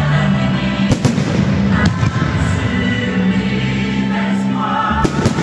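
Music with singing for a fireworks show, cut by a few sharp firework bangs about one, two and five seconds in.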